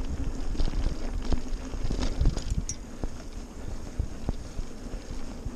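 Mountain bike riding over a dirt singletrack: a steady rumble of tyres on the trail, with frequent short rattles and knocks from the bike over bumps.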